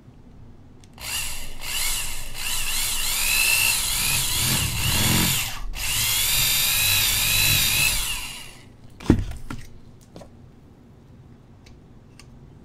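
Corded electric drill with a stepped bit running and cutting a hole in a jar lid held in a bench vise, with a brief stop about halfway through. The whine rises and falls in pitch as the bit bites. A single sharp knock follows shortly after the drill stops.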